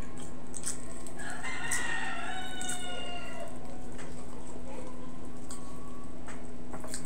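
A rooster crowing once in the background, one call of about two seconds, over a steady low hum. Soft clicks from hands tearing apart fried tilapia are heard around it.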